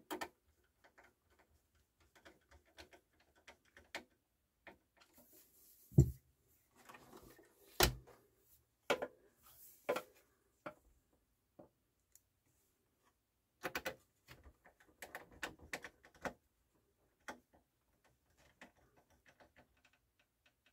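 Small screws being driven with a hand screwdriver into the side of a CD changer's faceplate and metal chassis: scattered light clicks and ticks, with two louder knocks about six and eight seconds in.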